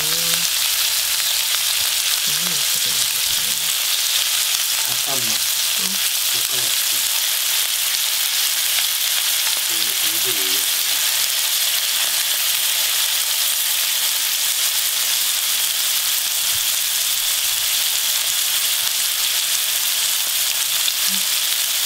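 Pork belly rolls wrapped around fatty aralia shoots sizzling in oil in a frying pan, a steady hiss. The rolls are browned and cooked through.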